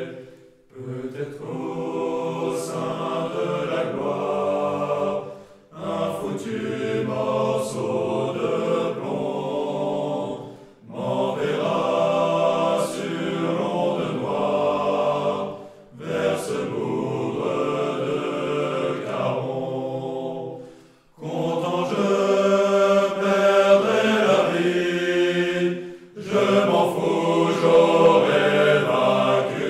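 A choir singing a French military song, in phrases of about four to five seconds with short pauses between them.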